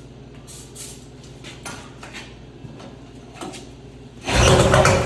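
A few short hisses of an aerosol can of starting fluid sprayed into the engine, then about four seconds in the 1991 Polaris Indy 650's two-stroke triple fires on the starting fluid and runs loud with its exhaust pipe off.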